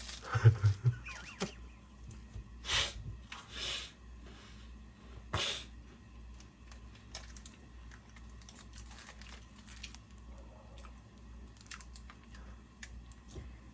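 Crinkling and tearing of a chocolate snack's wrapper, with a few thumps about half a second in and rustling bursts over the first six seconds, then faint clicks and rustles.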